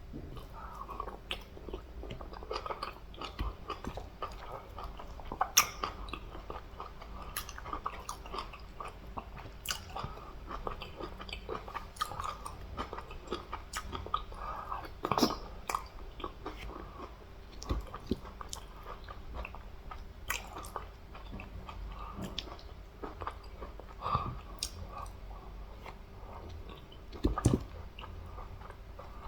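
Close-miked chewing and eating of fufu with egusi soup, catfish and meat: wet smacking and squelching mouth sounds with irregular sharp clicks and an occasional crunch.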